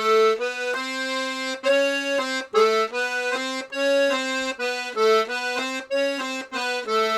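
Paolo Soprani C#/D two-row button accordion with three-voice LMM reeds playing a quick tune, the melody notes changing about twice a second over a lower note.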